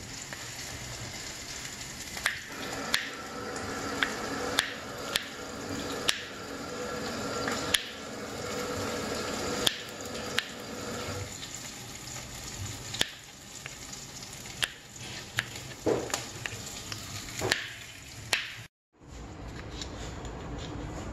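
Kitchen knife slicing garlic cloves on a wooden chopping board: sharp taps of the blade on the board every half second to a second over a steady hiss. After a brief dropout near the end, a knife cuts a tomato on the board.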